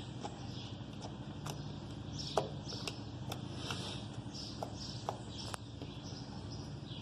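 Homemade slime being worked by hand, giving irregular sticky clicks and pops.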